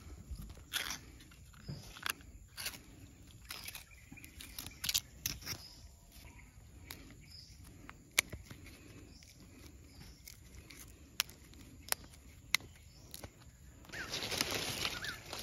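Coconut leaflets being torn by hand, the leaf blade peeled off the stiff midrib: light tearing and rustling with scattered sharp snaps. About fourteen seconds in, a louder, denser crinkling rustle as a pile of cut coconut fronds is handled.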